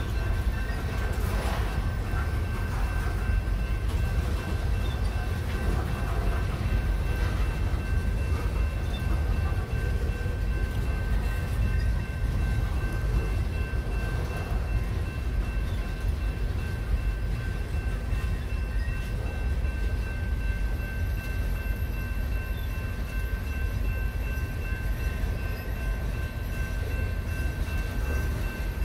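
Freight cars rolling past close by: covered hoppers, then lumber-loaded flatcars. The wheels on the rails make a steady low rumble, with a steady high-pitched tone over it.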